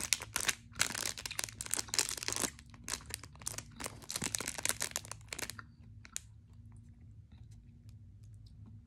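Clear plastic lollipop wrapper crinkling as it is handled, a dense run of crackles for about five seconds, then only a few faint ticks.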